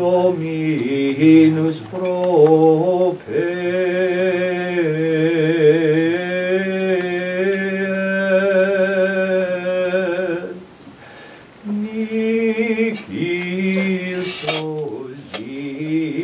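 Liturgical singing at Mass: voices holding long, slightly wavering notes. The singing breaks off for about a second near the middle and then resumes, with a short hissing rustle a couple of seconds before the end.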